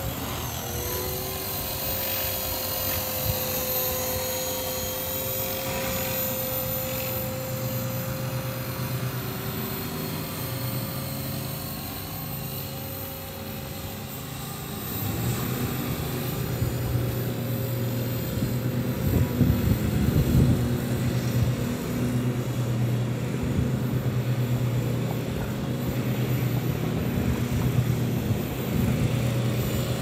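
Walkera V450D03 electric RC helicopter flying in gusty wind: a steady whine from its motor and rotors, with wind noise that gets louder about halfway through.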